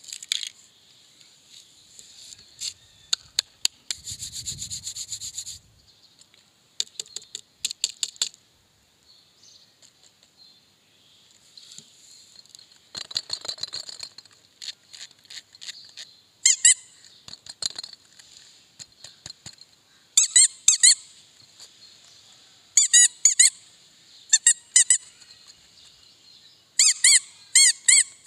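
Spiky rubber squeeze toy squeaking as hands squeeze it, in short runs of a few quick high squeaks each, after some clicking and rustling of handling in the first half.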